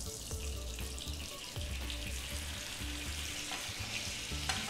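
Ghee poured into a hot nonstick pan, melting and sizzling with a steady frying hiss that grows fuller after the first second or so. This is the start of a hing-jeera tadka.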